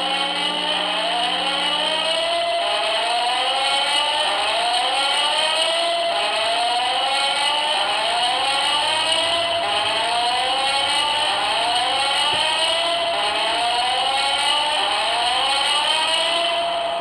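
Building alarm sounding during an alarm test: a loud whooping tone that sweeps upward in pitch, over and over, about once every 1.3 seconds. It dies away near the end.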